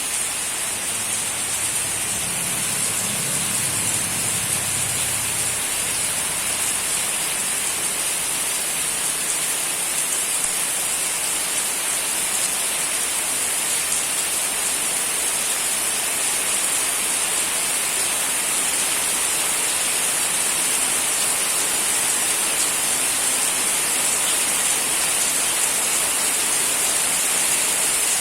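Heavy rain falling steadily, an even hiss of rain on surfaces.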